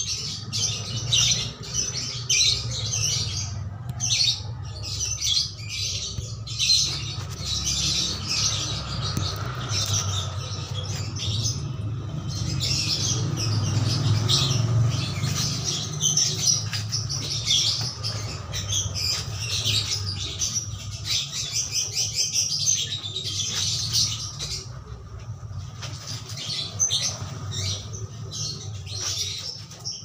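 Clothes being scrubbed by hand in a basin of soapy water, a scratchy rubbing that runs with short pauses, over a steady low hum.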